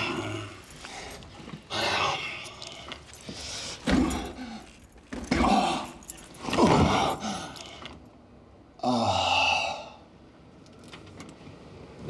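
A man's grunts and groans come in several short bursts while a door lock is worked with picks, with a couple of knocks against the door about four and five seconds in.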